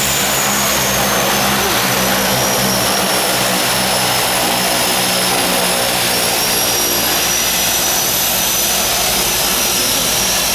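Twin Pratt & Whitney PT6A turboprop engines of a de Havilland Canada DHC-6 Twin Otter floatplane running as it taxis on the water at close range: a loud, steady propeller drone under a high turbine whine that drifts slightly lower in pitch, then rises a little near the end.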